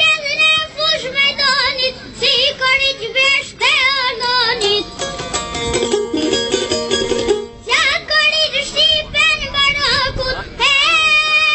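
A young boy singing a song over an instrumental backing, his voice wavering on held notes. Partway through the voice stops for a couple of seconds while the backing plays alone, then the singing resumes.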